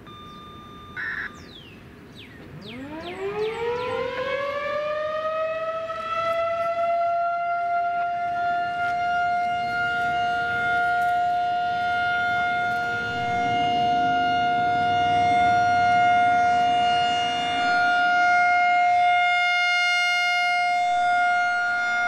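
Federal Signal 2001-SRN rotating electromechanical warning siren starting up a few seconds in: its pitch winds up quickly and settles into a steady alert tone, the start of a 3-minute steady alert test. The sound swells and fades slightly as the horn rotates.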